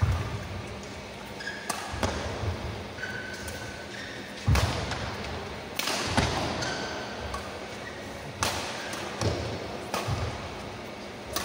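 Badminton rally: rackets hitting the shuttlecock in sharp cracks, roughly every one to two seconds, with brief shoe squeaks on the court floor between the shots.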